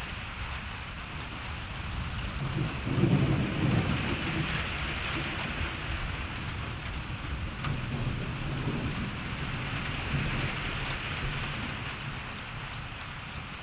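Steady rain hissing down, with thunder rumbling underneath. The rumble is loudest about three seconds in, and a weaker roll of thunder follows a few seconds later.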